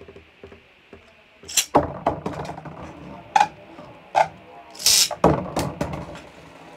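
Two Beyblade tops launched into a plastic stadium, each launch a short loud rasp from the launcher, about 1.5 s and 5 s in. Around them the tops click and clatter against the stadium and each other as they spin.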